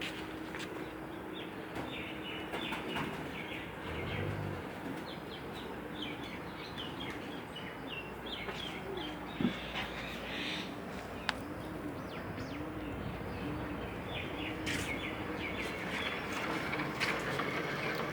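Birds chirping in short, repeated runs of high notes over a steady background, with a couple of sharp clicks near the middle.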